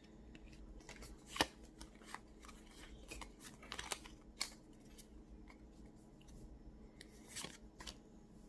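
A stack of Pokémon trading cards being handled and slid between the fingers: faint, scattered flicks and rustles of card stock, with a sharper snap about a second and a half in and a few more around four seconds.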